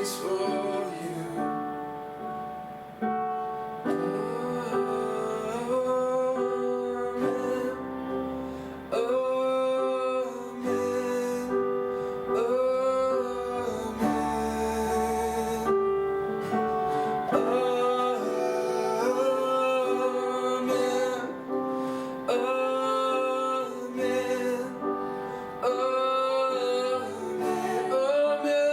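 Worship song: long sung phrases with vibrato over instrumental accompaniment.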